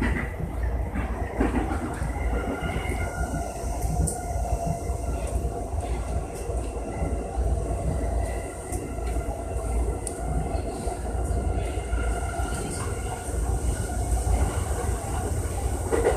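Sotetsu electric commuter train running at speed, heard from inside the front car: a steady rumble of wheels on rail with a few steady whining tones over it.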